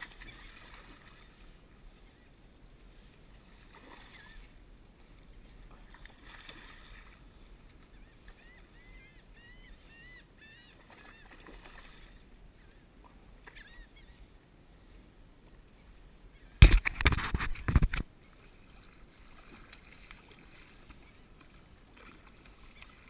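Hooked bluefish splashing and thrashing at the surface beside a kayak, heard as faint, scattered splashes. A little past halfway comes a loud, rough burst of splashing and knocking right at the microphone, lasting about a second.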